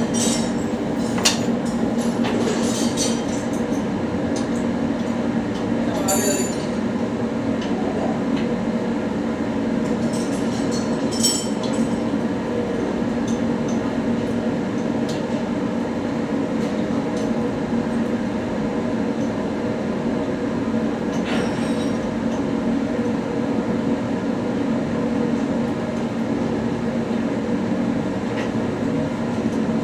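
A steady, loud machinery drone throughout, with scattered metallic clinks and scrapes of tools and parts at several points, typical of work on a turbocharger overhaul.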